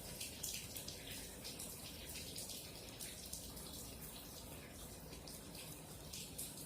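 Faint clicking and scratching of small hand work on a wire connector, pins being taken out and moved, over a low steady hiss.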